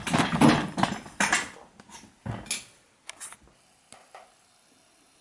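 Metal hand tools being handled and set down: rustling and clattering for about a second and a half, a couple of sharper metallic clinks, then a few light taps.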